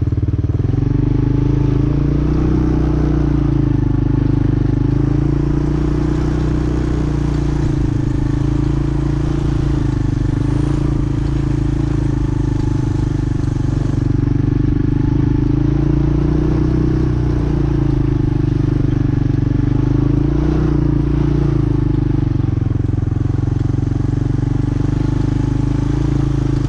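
1986 Honda 4Trax ATV's single-cylinder four-stroke engine running under a rider, its pitch rising and falling gently with the throttle through turns.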